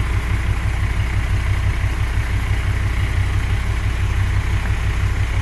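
1966 Dodge Charger's V8 engine idling with a steady, evenly pulsing low rumble.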